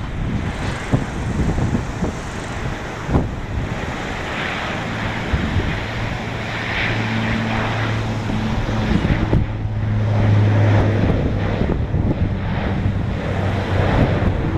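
Bombardier Dash 8 Q400 turboprop on its takeoff run, its propellers giving a steady low drone that swells from about four seconds in, peaks a little past the middle and fades near the end. Heavy wind buffets the microphone throughout.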